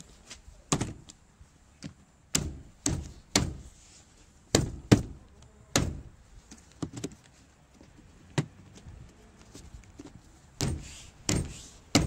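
Hand tapping the plastic top trim of a Range Rover L322 door panel to push its clips home: a dozen or more separate knocks at uneven intervals.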